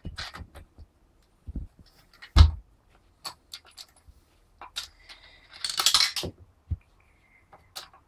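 Metal nuts and washers clinking against an aluminium hub plate and its bolts as nuts are run on by hand, in a string of short clicks. A louder knock comes about two and a half seconds in, and a longer metallic rattle comes around six seconds in.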